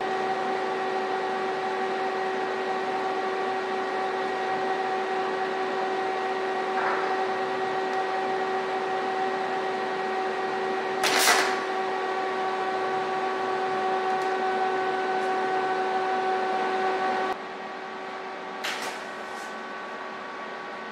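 TIG welding on steel tube joints: a steady electrical hum with a few constant tones over a hiss from the welder and arc. There is a sharp click about eleven seconds in, and about seventeen seconds in the hum steps down in level and changes pitch.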